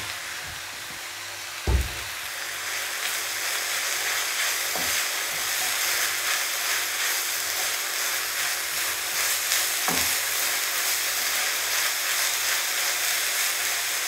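Drumstick leaves and grated coconut sizzling in a hot pan as they are mixed: a steady frying hiss that grows louder a few seconds in, with a few short knocks, the loudest about two seconds in.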